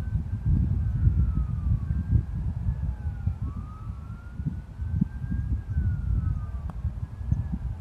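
Distant siren wailing, its pitch slowly rising and falling, at times two tones crossing, over a loud low rumble.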